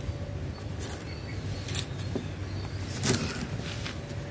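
Kitchen knife cutting through cauliflower stalks and leaves on a plastic cutting board: a few separate crisp snaps and taps, the loudest about three seconds in, over a steady low hum.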